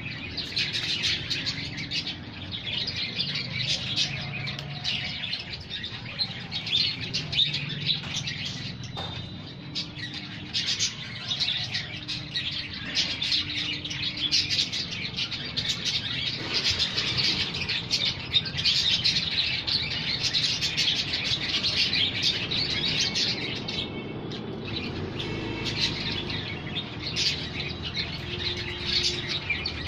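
Many small birds chirping together in a dense, continuous chorus of quick high chirps.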